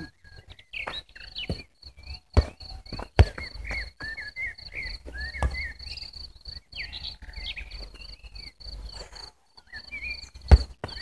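Birds chirping over a high, evenly pulsing trill, with a few sharp knocks of a football, the loudest near the end.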